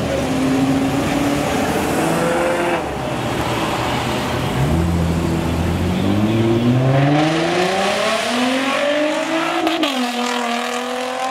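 Car engines accelerating away in turn. One engine climbs steadily in pitch from about four seconds in, then drops back and holds steady near the end.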